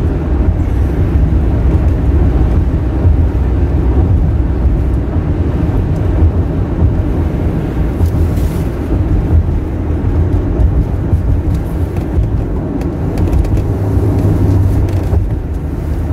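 Car driving at a steady speed, heard from inside the cabin: a steady low rumble of engine and road noise.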